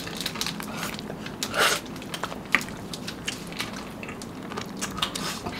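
Biting and chewing chocolate-coated ice cream bars (Snickers and Mars), with scattered small crunches and wet mouth clicks; the loudest comes about a second and a half in.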